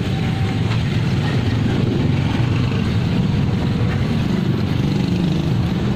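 Motorboat engine running steadily with a low hum, under a constant rushing noise.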